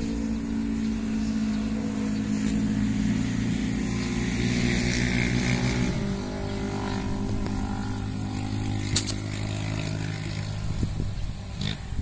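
A nearby engine running steadily at an even pitch, which shifts about halfway through. One sharp click about nine seconds in.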